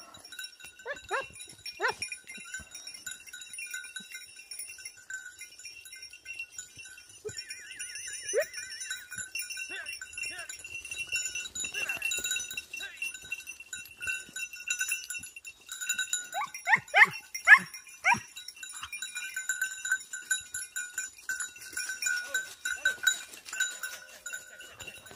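Bells on Segugio Italiano hounds' collars ringing steadily at a few fixed high pitches as the dogs work a hare's scent. Short falling yelps from the hounds break in now and then, with a quick run of loud ones about two-thirds of the way through.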